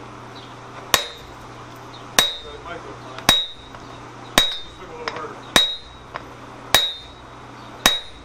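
A sledgehammer strikes a round top tool held with tongs on a hot steel swage block, sinking a depression into the block. There are seven even blows, about one a second, each with a short high metallic ring.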